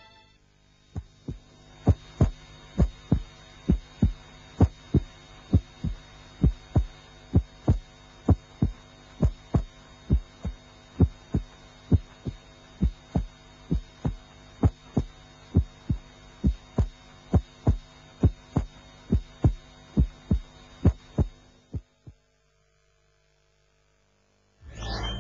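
Slow, regular double thumps, about one pair a second, over a steady hum; the thumps and the hum stop suddenly near the end.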